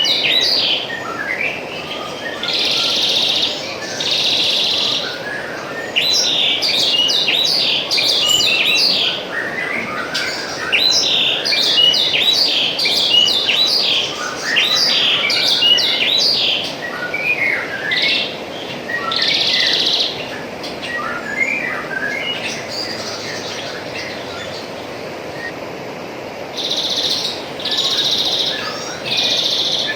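Many small birds chirping and twittering over a steady trickle of running water, with a few second-long buzzy trills in between.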